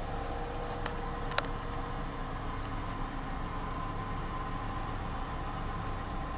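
John Deere tractor running steadily under load while pulling a seed drill across the field, heard from inside a car. A single sharp click about one and a half seconds in.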